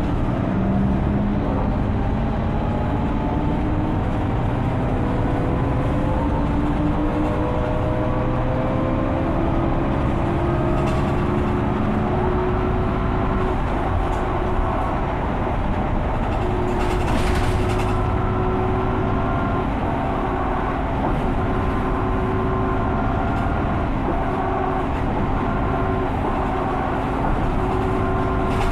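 Mercedes-Benz O530 Citaro city bus with a ZF Ecomat automatic gearbox under way. Its engine note rises and levels off in stages as it drives, with a brief hiss about two-thirds of the way through.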